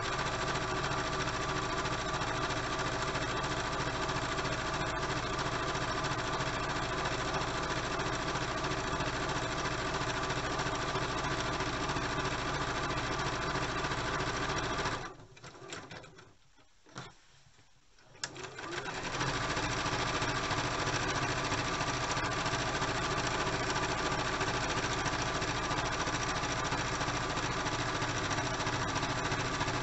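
Electric domestic sewing machine stitching a seam at a steady speed through layered fabric. It stops for about three to four seconds about halfway through, then runs on steadily again.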